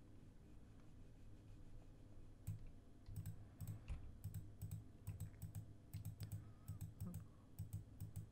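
Faint computer clicking: a run of irregular key and button clicks, a few per second, starting about two and a half seconds in over quiet room tone.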